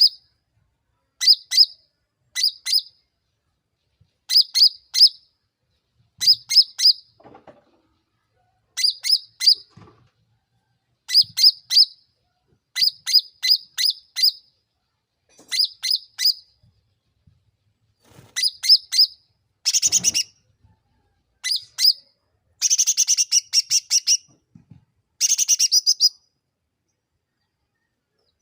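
A cucak ranting songbird calling in quick groups of three to five sharp, high chirps, each group a second or two apart. Twice, near the two-thirds mark and again toward the end, it breaks into longer, denser, buzzier bursts of song.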